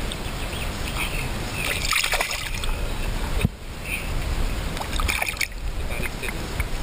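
River water splashing and sloshing right at a waterproof camera sitting in the surface, as a barbel is released by hand beside it, with two spells of splashing and a sharp knock on the camera in between.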